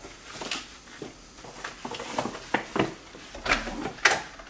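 Clicks and knocks of an apartment front door's lock and handle being worked to unlock it, a series of short sharp sounds with the loudest near the end.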